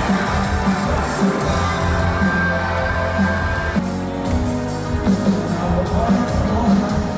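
Live band playing loud amplified music with a heavy bass line, heard from within the audience in a large hall.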